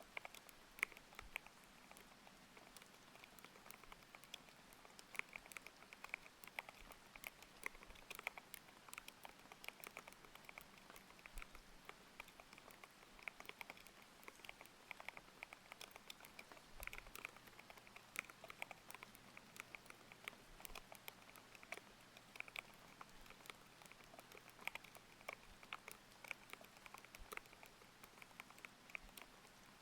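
Continuous typing on a mechanical keyboard with linear Aqua King switches: a dense, irregular stream of soft, thocky key clacks. A faint steady rain hiss lies underneath.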